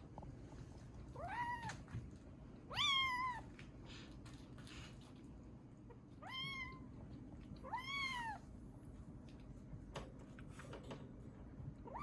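A young domestic kitten meowing four times, each meow high-pitched and rising then falling in pitch, the second the loudest.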